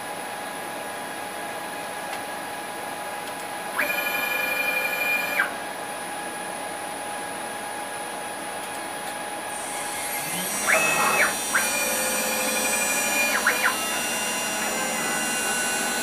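6040 CNC router running: the spindle gives a steady whine, and the stepper motors sound as the gantry moves about 4 s in. From about 10 s a carbide end mill starts cutting cymbal bronze, and the sound turns louder and harsher with more stepper movement. This cut, at 35 inches a minute and 20 thou deep at 12,000 RPM, is one the operator then judges a little aggressive.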